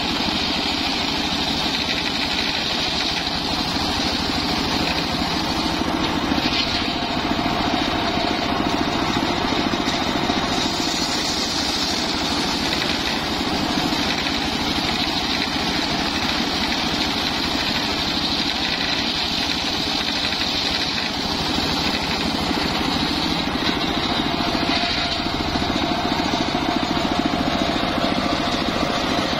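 Homemade engine-driven circular saw bench running steadily as it rips a teak log lengthwise.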